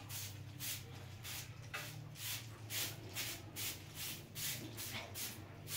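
Short hand broom sweeping dust off a concrete doorstep in quick, even strokes, about three to four swishes a second.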